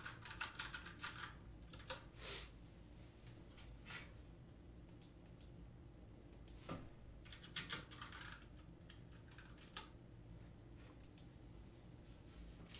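Sparse light clicks and taps, a quick cluster at the start and then single ones every second or two, over quiet room tone.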